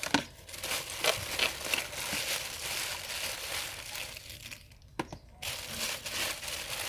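Plastic crinkling and rustling as it is handled, with scattered small clicks and a single sharp tap about five seconds in.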